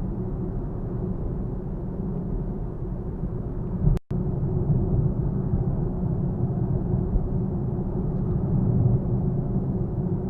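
Steady road and engine rumble of a Nissan Fuga 370GT Type S and its VQ37VHR V6 while driving, with the sound cutting out for an instant about four seconds in.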